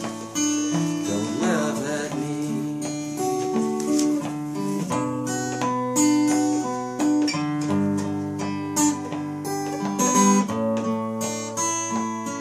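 Acoustic guitar playing an instrumental break in a folk song, with held chords changing every couple of seconds.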